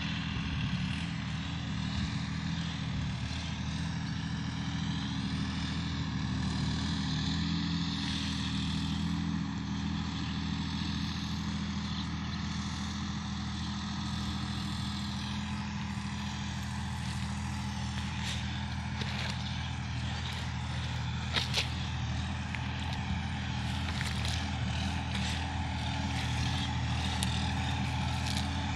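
Sonalika Supreme DI 50 hp tractor's diesel engine running steadily. A few sharp clicks come about two-thirds of the way through.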